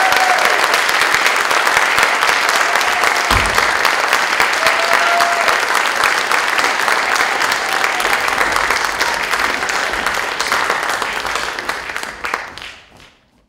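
Audience applauding, with a few short calls among the clapping; the applause fades out at the end.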